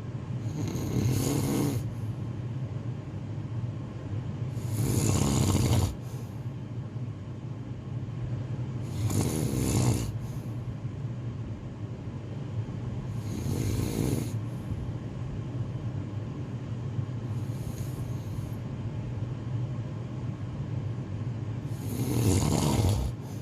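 A person snoring in a slow, even rhythm: six snores about four seconds apart, over a steady low hum.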